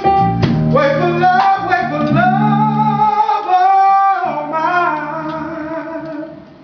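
Male vocalist singing a slow R&B ballad with live band accompaniment, guitar and bass under long held notes. The low accompaniment drops out for about a second midway while he holds a high note. The music fades out near the end.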